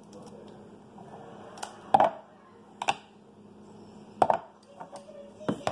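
A knife chopping pieces of chocolate candy: a handful of sharp, irregular knocks as the blade hits the surface beneath, the loudest about two seconds in.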